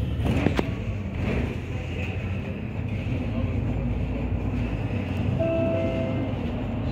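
Cabin noise of a MAN Lion's City Efficient Hybrid bus under way: a steady low drivetrain and road rumble, with a sharp knock about half a second in. About five seconds in, a short steady tone sounds for under a second.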